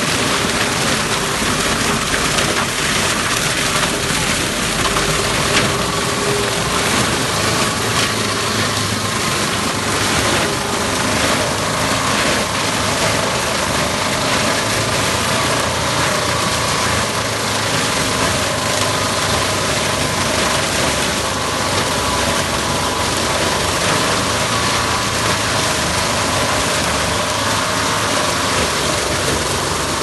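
Tractor engine running under load while a Hualand 0890 round baler with cutter picks up and chops dry cornstalks: a steady mix of engine and machinery noise with a faint steady whine.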